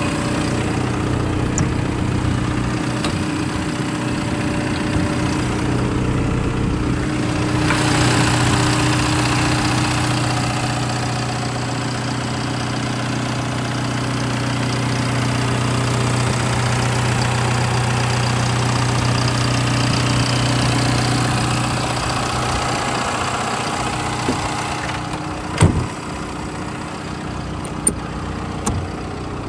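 Liebherr R914 Compact excavator's diesel engine running steadily, growing louder with a rushing sound from about eight seconds in and easing back down after about twenty-two seconds. A sharp clunk comes near the end, followed by a few light clicks.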